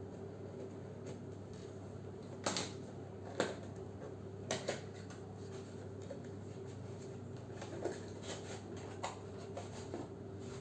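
Cardboard CPU retail box being opened and its contents handled: scattered sharp clicks, scrapes and rustles, about seven of them, over a steady low hum.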